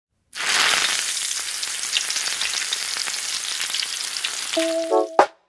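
Frying sizzle sound effect: a dense crackling hiss like food in hot oil, starting suddenly and running for about five seconds. Near the end a few short synth notes sound and a sharp click cuts it off.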